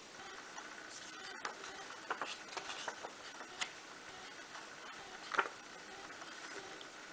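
Small parchment-craft scissors snipping through perforated parchment paper: faint, irregular clicks, the sharpest about five seconds in.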